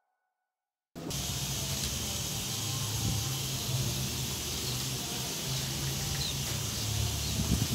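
About a second of silence, then steady background noise cuts in suddenly: an even hiss with a low rumble under it, with a few louder bumps right at the end.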